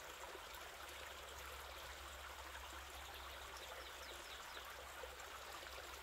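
Faint, steady trickle of running water, with a low hum underneath.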